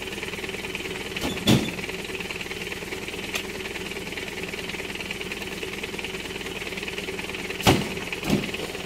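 Oil palm fresh fruit bunches thudding into the bed of a pickup truck as they are thrown in: one thud about a second and a half in, then two close together near the end, over a steady background drone.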